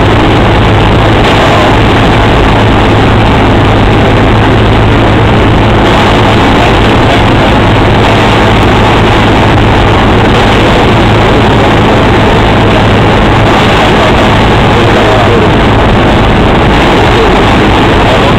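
Single-engine propeller glider-tow plane's engine and propeller running steadily in flight, heard loud from inside the cabin as an unchanging low drone over rushing noise.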